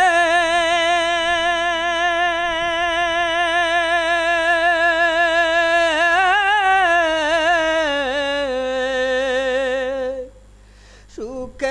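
A male voice singing a Bengali gojol, an Islamic devotional song, holding one long note with steady vibrato. About six seconds in the note turns into a wavering run that rises and then falls. It breaks off about ten seconds in, and the singing starts again just before the end.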